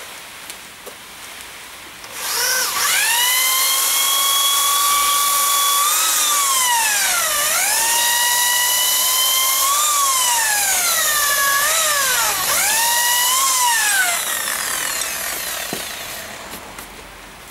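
Bosch corded electric drill running with a high whine as it opens up bolt holes in a rubber pad. It starts about two seconds in, the pitch dips and recovers several times as the bit loads up, and the drill winds down and stops near the end.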